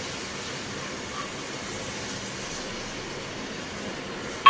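Steady, even kitchen background hiss with a faint low hum and no distinct events, from the lit gas-stove burners and room ventilation.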